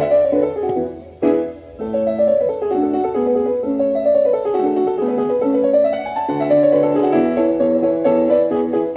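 Keyboard music of rising and falling note runs, played through a small speaker driven by an 8-bit ATtiny85 class D amplifier with an L298N H-bridge output stage. A click and a short drop in level come about a second in.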